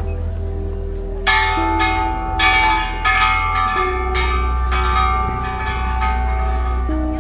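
Background music: a melody of chiming bell strokes, about two a second, over held chords and a steady deep bass.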